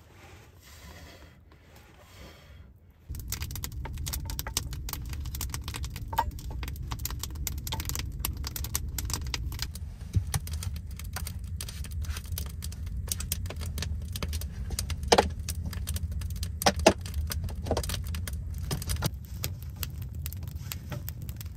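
Wood fire crackling in a stove with a steady low rumble, coming in abruptly about three seconds in; a few sharper knocks stand out about two-thirds of the way through.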